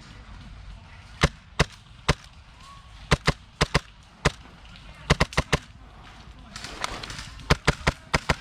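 Airsoft gunfire during a skirmish: sharp, irregular cracks, some single and some in quick clusters of two to five.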